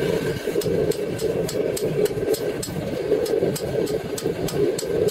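Hydraulic forging press's power unit running steadily, a constant mechanical drone with faint quick ticking over it, while hot leaf-spring steel is worked on the press die.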